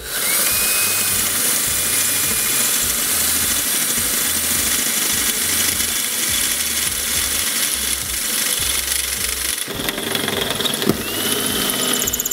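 Power drill boring a hole through metal roof flashing with a twist bit: the motor spins up with a rising whine into a steady, loud, hissing grind. It stops briefly about ten seconds in and spins up again.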